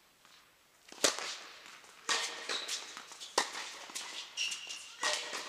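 Tennis rally: sharp cracks of rackets striking the ball and the ball bouncing, about one a second, the first about a second in the loudest. A few short high squeaks are heard between the hits.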